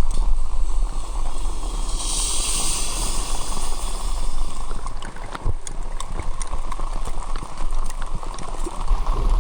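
Rain dripping and pattering on a tarp, irregular drops ticking over a steady low rumble, with a brief hiss about two seconds in.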